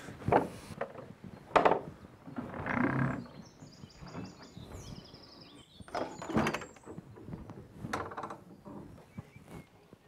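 Wooden log-cabin door being unlatched and pushed open, then a string of wooden knocks and thumps as the wooden window shutters are opened from inside. A thin creak comes in the middle.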